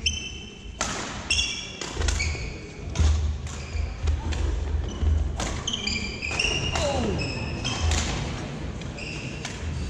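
Badminton singles rally on a hardwood court: sharp racket-on-shuttlecock smacks roughly once a second, short high-pitched squeaks of sneakers on the floor, and dull thuds of footwork.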